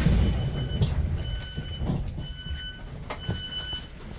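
Train door warning beeps: four long electronic beeps about a second apart, over the low rumble of the train, loudest near the start.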